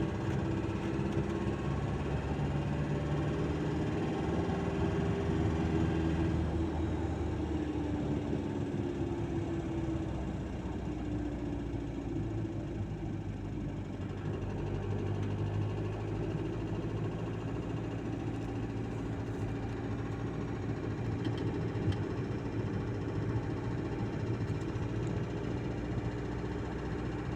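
Warm 1.9 TDI four-cylinder turbodiesel (AVG/AFN) running with a knock from inside the engine. Its speed eases down about a quarter of the way in, then holds steady.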